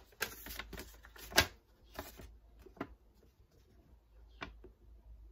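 A sheet of paper being handled and rustled: a quick run of crisp crackles in the first two seconds, the sharpest about a second and a half in, then a few scattered ticks.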